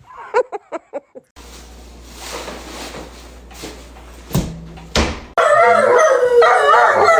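A dog giving a quick run of about six short, high yips, then, a few seconds later, a dog howling and whining loudly in a long wavering voice.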